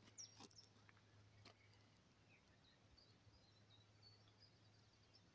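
Near silence with faint, scattered bird chirps and a few soft clicks in the first second or so.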